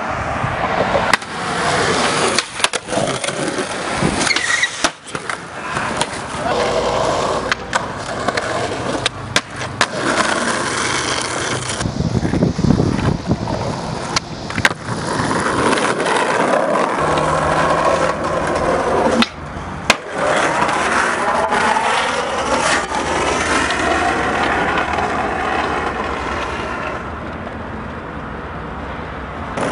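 Skateboard wheels rolling on concrete, with the sharp clacks and knocks of the board being popped and landing again and again.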